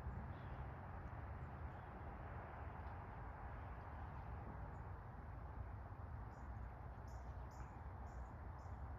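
Quiet outdoor ambience: a steady low rumble and hiss, with a few faint, short high chirps in the second half.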